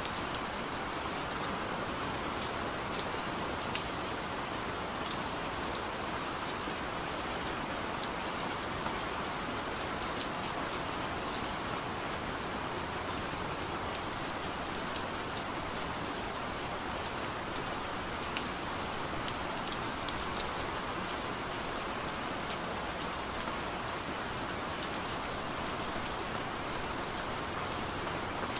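Steady rain falling: an even hiss with many small, crisp drop ticks scattered through it.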